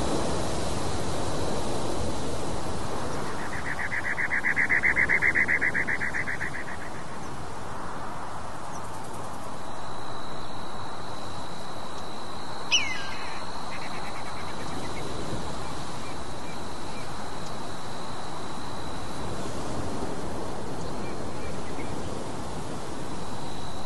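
Outdoor nature ambience: a steady rushing noise like wind, with a rapid buzzing trill from about four to seven seconds in and one brief sharp bird call about halfway through.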